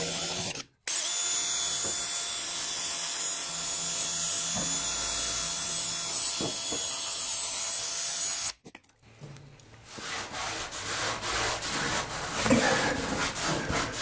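A wire wheel on a hand-held power tool spinning against a rusty steel fender, scrubbing off rust with a steady noise that cuts out briefly about a second in and stops a little past the middle. After that, a rag rubs oil into the bare patch in short, irregular strokes.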